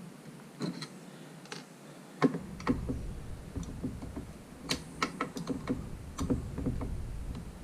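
Irregular clicks and taps of a touchscreen panel's plastic case being pried apart at its snap-in clips, with low handling bumps from about two seconds in.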